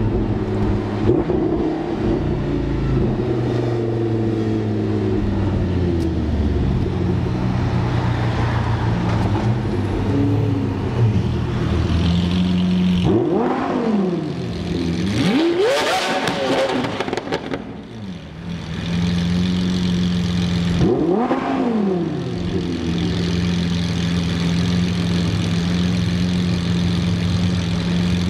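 A car engine idling, then revved a few times from about halfway through, each rev rising and falling in pitch before it settles back to idle.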